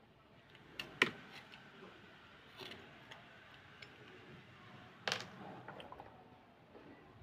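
Utility blade scraping a slate pencil in a few short, sharp scrapes and ticks, the loudest about a second in and about five seconds in.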